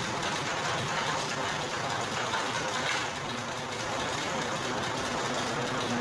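Motor-driven sugarcane crushing press running steadily, its rollers and gears turning with an even mechanical clatter; a faint hum joins a little past halfway.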